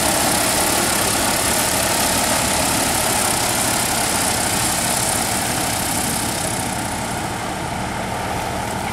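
DJI T40 agricultural spraying drone's rotors running, a loud steady drone that eases off slightly in the last few seconds.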